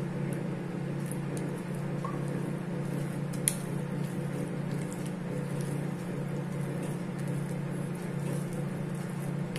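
Spatula folding milk into wet cake batter in a bowl, with soft squishing, over the steady hum of a convection oven preheating. A single sharp click about three and a half seconds in.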